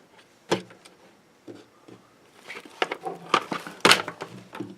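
Plastic case parts of a solar charge controller being handled: a sharp click about half a second in, then a quick run of clicks and knocks in the second half.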